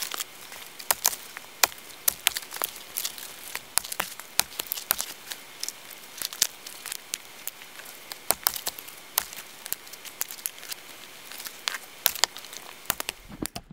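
Dry twigs and small dead branches snapping as they are broken off and broken up by hand: many irregular sharp cracks and crackles over a faint hiss.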